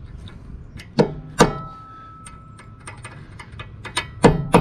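A big hammer striking metal hub parts during a lug stud replacement: four hard blows in two pairs, one early and one near the end, with lighter taps between. The second blow leaves the metal ringing briefly.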